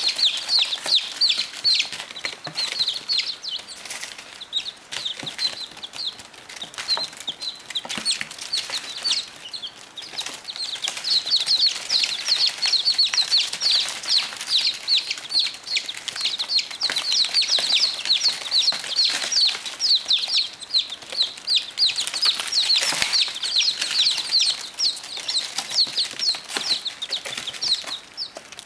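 A brood of baby chicks peeping: a dense, continuous chorus of short high-pitched cheeps that gets busier about ten seconds in.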